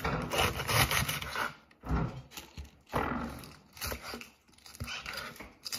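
Chef's knife slicing through a head of iceberg lettuce on a wooden chopping board: a crisp crunch with each stroke, with a light knock of the blade on the board, repeated about once a second.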